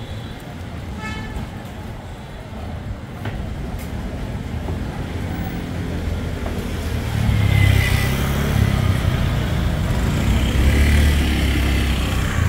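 Motor scooter traffic on a busy street: small engines running and passing close, with a low rumble that grows louder from about seven seconds in.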